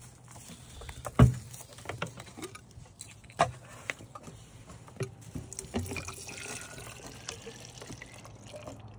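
Plastic rabbit water bottle being handled and hung on a wire hutch: water sloshing and trickling, with a few sharp knocks and clicks against the wood and wire, the loudest about a second in.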